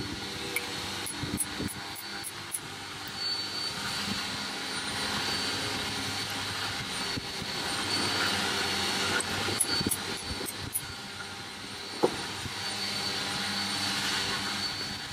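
A steady engine-like drone, with scattered light metallic clicks of hand tools working at a sailboat's sail-drive drain fitting and one sharp knock about twelve seconds in.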